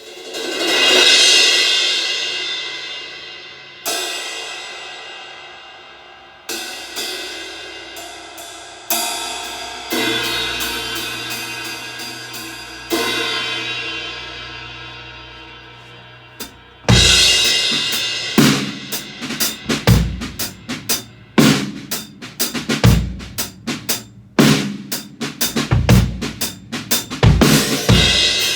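Acoustic drum kit, picked up by a phone's microphone: for the first half, single cymbal strikes left ringing out with long decays, then from about halfway through a steady groove of bass drum, snare and hi-hat.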